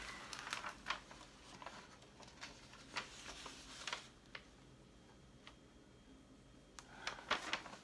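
Light crackling and ticking of the protective release paper on a diamond-painting canvas being lifted and handled, busiest in the first few seconds and again near the end.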